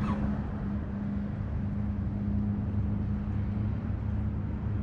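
A motor humming steadily at one low, even pitch, with a light hiss over it.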